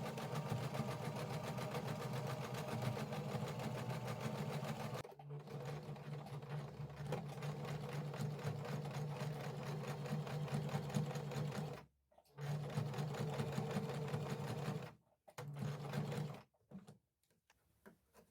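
Sewing machine stitching in runs: one long run of about twelve seconds, then two shorter runs with brief stops between them, and a few light clicks near the end.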